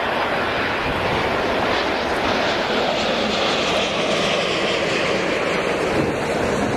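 Jet airliner on low final approach passing close by: a steady, loud engine rush with a high whine that falls in pitch as it goes past.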